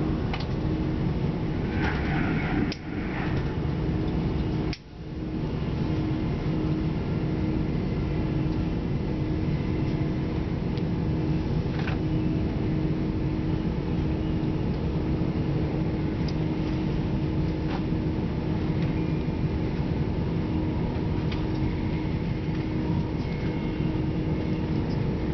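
Interior noise of a Chiltern Railways Class 168 diesel multiple unit running at speed: a steady low rumble from the running gear and the underfloor diesel with one constant humming tone. Twice in the first five seconds the sound drops away for a moment.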